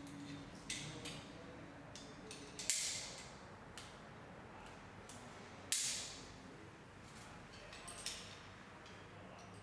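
Metal climbing hardware clinking: carabiners and a rope grab being handled and clipped on a rope access harness, in scattered short clinks and jingles, the loudest about three and six seconds in.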